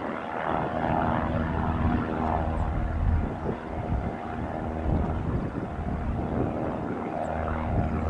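Propeller airplane in flight, its engines a steady hum of several tones that swells and fades slightly.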